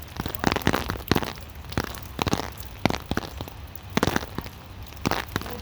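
Rain falling, with irregular sharp taps of drops hitting close by.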